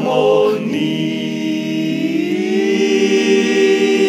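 Male a cappella vocal ensemble singing without accompaniment, holding a long sustained chord; about two seconds in the voices slide up together into the held chord.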